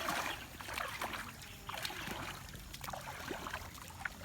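Irregular small splashes and sloshing of muddy paddy water as rice seedlings are pushed into the mud by hand.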